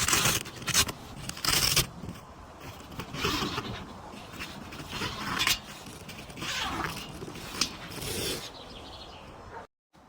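Irregular scraping and rustling in a series of short bursts, with no steady tone, cutting off abruptly near the end.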